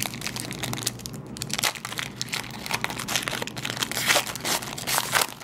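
Foil wrapper of a Panini basketball card pack crinkling and tearing as it is pulled open by hand. The crackling runs on throughout and grows louder about four seconds in.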